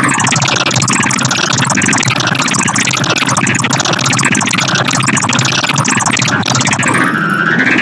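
Black MIDI 'noise' piece played back as synthesized piano: huge clusters of simultaneous notes merge into a loud, dense wall of sound. Repeated sweeps rise and fall through the upper pitches.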